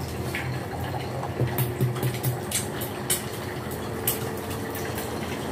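An egg frying in hot oil in a frying pan: a steady sizzle with scattered sharp pops and crackles of spitting oil.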